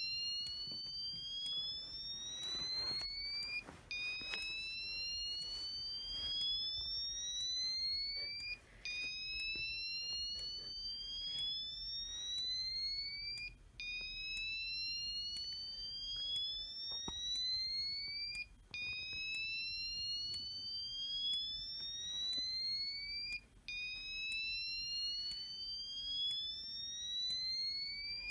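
EST Genesis ceiling-mount speaker strobe sounding a slow whoop tone, a high rising sweep that lasts nearly five seconds. It repeats about every five seconds with a brief break between sweeps.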